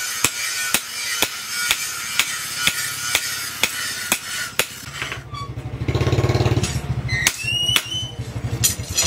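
Hand hammer striking a hot steel blade, forged from an old bearing, on a steel post anvil, about two blows a second. A steady grinder-like whine sits behind the blows for the first half, and about five seconds in a small engine starts running with a fast low pulse, loudest a second or two later, while the blows carry on.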